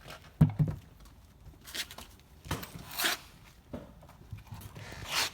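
Handling noises as a refrigerator door is fitted back onto its hinge. A sharp knock comes about half a second in, followed by several short scrapes and rustles and a small click.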